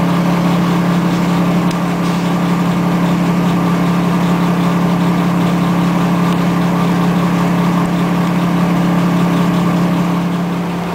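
Car wash machinery running with a steady low drone, its level easing slightly near the end.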